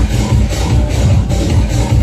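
Loud dance music with a heavy, pulsing bass beat.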